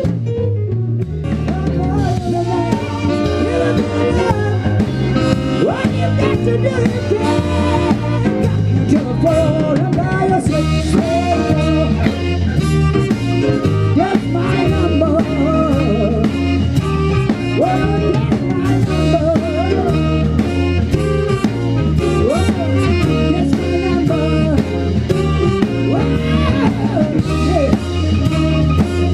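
Blues-rock band playing an instrumental passage on drum kit and electric guitar with a steady beat. A lead line repeatedly bends in pitch over the rhythm.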